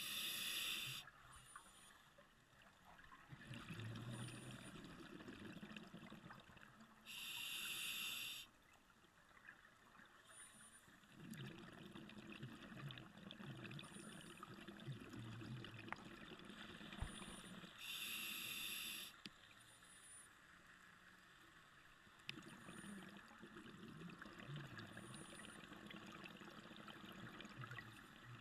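Scuba diver breathing through a regulator underwater: three short, loud hisses on the inhalations, about ten seconds apart, each followed by several seconds of low bubbling as the exhaled air escapes.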